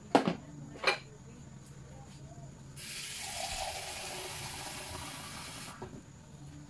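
Two sharp clicks in the first second, then water running from a tap for about three seconds, filling a cup with water for the pot; it starts and stops abruptly.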